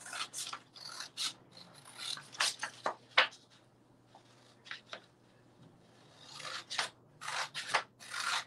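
Scissors cutting through a sheet of printed sublimation paper, with the paper rustling: a string of short snips, a lull of a couple of seconds in the middle, then more snips near the end.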